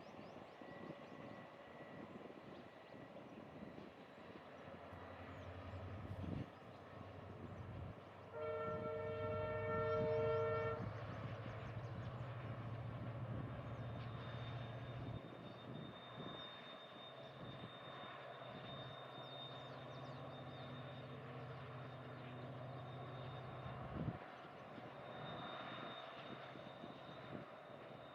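Diesel locomotive passing with its engine running as a low drone, and its horn blown once for about two and a half seconds, some eight seconds in. A thin, high, steady tone joins in the second half.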